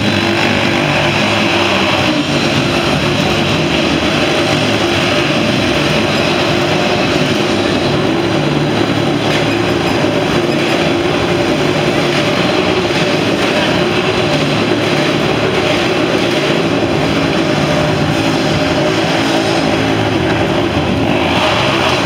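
Motorcycle engines running steadily inside a steel mesh Globe of Death.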